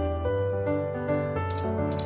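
Background music: sustained, evenly held notes over a low bass line, with a few light clicks near the end.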